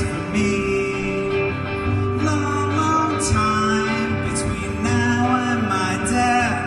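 A man singing a slow song to his own guitar accompaniment, with a steady sustained tone held underneath the melody.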